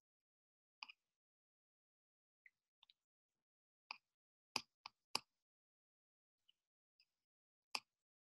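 Near silence broken by about ten short, faint clicks scattered irregularly, the sharpest a few around the middle and one near the end.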